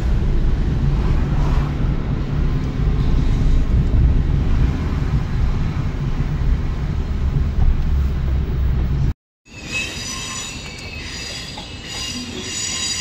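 Low rumble of road and engine noise heard inside a moving car's cabin. After an abrupt cut about nine seconds in, a train's high-pitched metallic squeal: several steady shrill tones over a quieter background.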